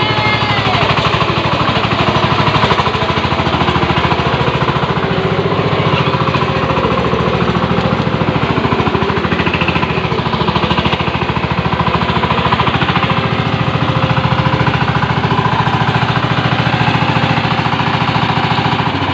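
Diesel tractor engine running hard under load, a rapid, even pounding, as it pulls a trailer loaded with sand.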